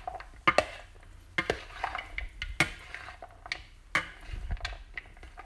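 Metal spoon stirring chicken macaroni salad in a bowl: soft scraping, with irregular sharp clinks of the spoon against the bowl, four of them loud.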